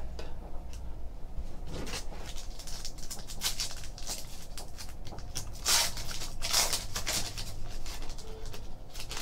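Foil wrapper of a 2014-15 Panini Select basketball card pack crinkling and tearing as it is opened by hand, in a run of short, irregular crackles and rustles, loudest about six to seven seconds in.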